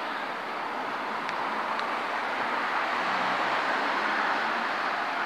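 Steady vehicle rumble and road-traffic noise that swells slightly and then eases, with no warning bells to be heard.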